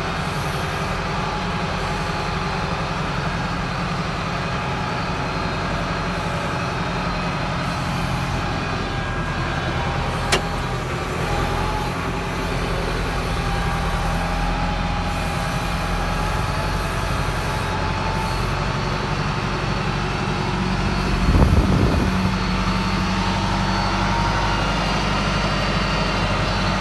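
YTO 904 tractor's diesel engine running steadily under way, heard from inside the cab. There is a single sharp click about ten seconds in and a brief louder noise a little past the twenty-second mark.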